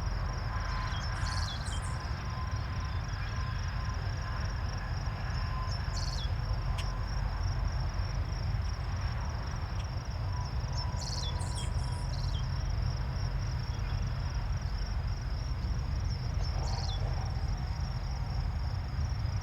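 Steady, pulsing trill of insects in summer vegetation, with several short high chirps every few seconds over a continuous low rumble.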